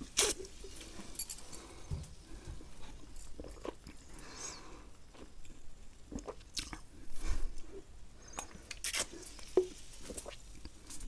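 Close-miked ASMR mouth sounds: a swig of cola from a plastic bottle and swallowing at the start, then scattered wet mouth clicks and chewing noises at irregular intervals.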